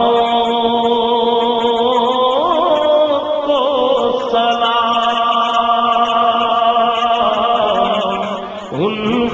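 A male voice chanting a naat without instruments, holding long notes that slide slowly up and down in pitch, with a dip and a quick rising slide near the end.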